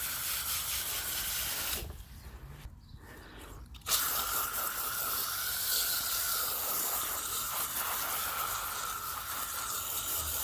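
Water spraying from a hose to rinse the last sand out of a pool sand filter tank, a steady hiss. It stops about two seconds in and starts again abruptly about two seconds later.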